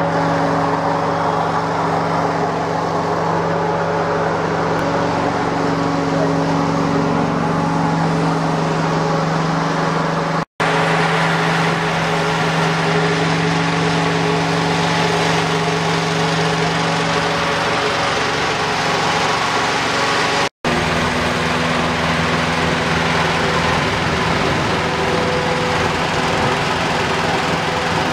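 Small petrol engine of a firefighters' positive-pressure ventilation fan running at a steady speed, a constant engine drone with a fan's rush of air.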